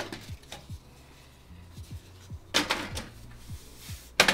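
Two sharp clacks from a PC case being handled, about two and a half seconds in and again near the end, over quiet background music with a low pulsing beat.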